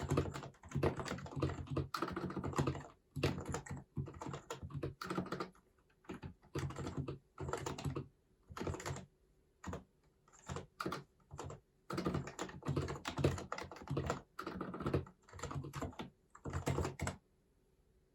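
Typing on an HHKB Hybrid Type-S keyboard, whose silenced Topre capacitive switches give quick runs of keystrokes with short pauses between them, stopping about a second before the end.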